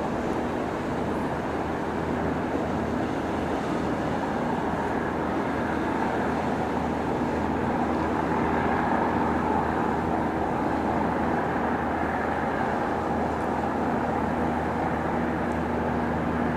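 Steady hum of the Asuka II cruise ship's machinery under way, with a constant noisy rush of wind and water on the open deck.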